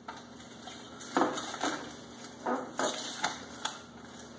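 Plastic wrapping crinkling in short bursts, about six times, as it is pulled off a stainless steel pot's handle.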